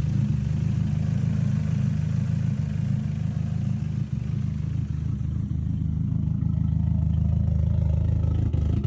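Nissan 240SX's KA24DE 2.4-litre four-cylinder engine idling steadily, running smoothly now that a new engine wiring harness has cured its no-start.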